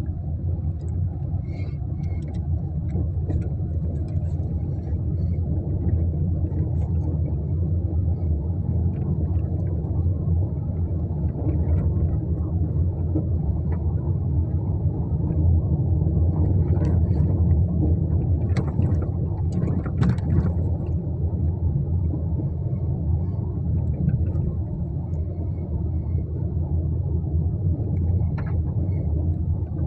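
Steady low rumble of a car being driven, heard from inside the cabin: engine and tyre noise, with a few faint clicks or rattles.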